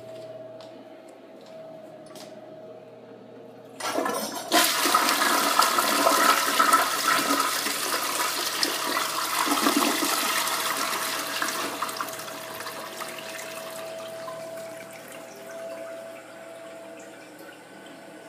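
2002 Crane Plumbing Galaxy tank toilet flushing. About four seconds in, a sudden loud rush of water swirls down the bowl, then dies down over the following several seconds into a quieter run of water.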